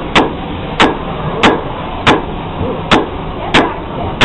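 Blacksmith's hammer striking a bar of meteoric iron on an anvil, seven sharp blows at a steady pace of about one and a half a second, each with a short ring, as the iron is forged into a bar shape.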